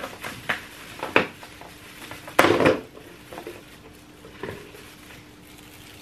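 A clear plastic tub knocking and scraping against an acrylic enclosure as it is tipped: a few light clicks, and one louder scraping rustle about two and a half seconds in. A faint steady hum runs underneath.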